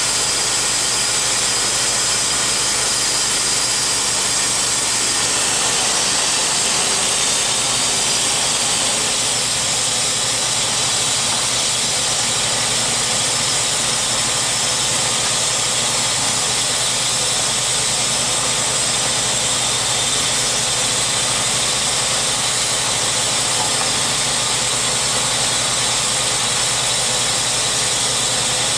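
Gasoline engine of a Timberking B-20 portable bandsaw mill running steadily, with a strong high hiss over it.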